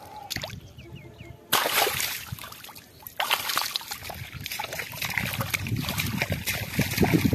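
Shallow muddy water splashing and sloshing as a fish thrashes through it and hands grab at it. The splashing starts suddenly about a second and a half in, eases briefly near the middle, then goes on.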